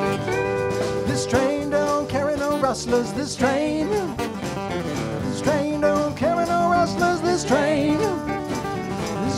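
Live band playing a country-style song on drums, guitars and keyboard, with a lead melody line sliding and bending in pitch over the top.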